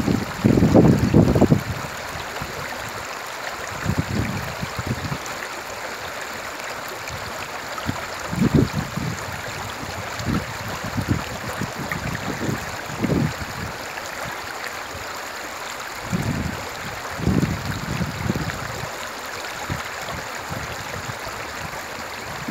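Shallow river running over a stony bed in a steady babbling rush. Low rumbling gusts of wind on the microphone come and go every few seconds.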